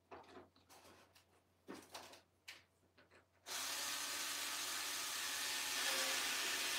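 Small cordless drill-driver whirring steadily as it drives a wing screw into a foam model jet's wing. It starts suddenly about halfway through, after a few light clicks of handling.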